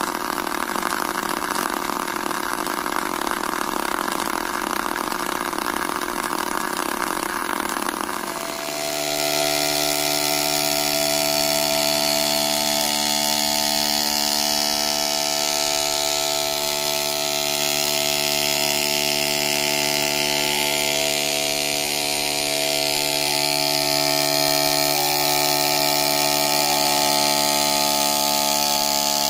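A small battery-powered DC motor spinning an off-centre weight buzzes as it shakes a scribble robot (a plastic body on marker-pen legs) across a whiteboard. About eight and a half seconds in, the buzz changes abruptly to a steadier pitched hum as a bigger plastic-bottle robot runs.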